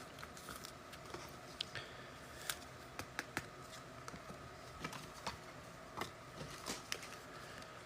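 Trading cards and foil pack wrappers being handled and opened: scattered light clicks and snaps.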